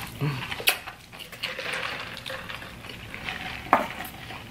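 Small clicks and rustles of takeout containers and paper-cup drinks being handled at a table, with a few sharp taps among them.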